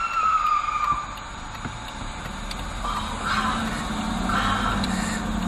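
A car's engine and road noise heard from inside a car driving through an intersection: a steady low engine hum that grows from about halfway through. A high, slightly falling tone lasts about a second at the start.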